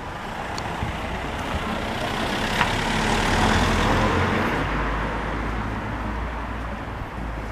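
A motor vehicle driving past on the street: engine and tyre noise swelling to a peak about three to four seconds in, then fading away.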